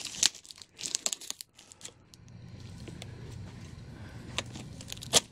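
Cardboard shipping box being handled: a cluster of knocks and rustles in the first second or so, then a single sharp knock near the end, over a low steady hum.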